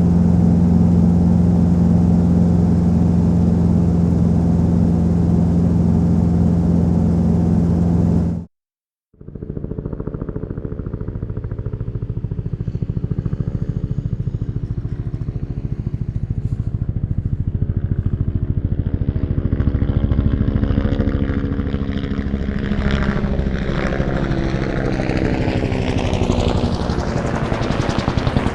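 Helicopter running steadily with a strong low hum, cutting off after about eight seconds. After a short gap a second helicopter recording starts: a rapid rotor beat under engine whine, slowly growing louder, its tone sweeping and shifting in the last few seconds.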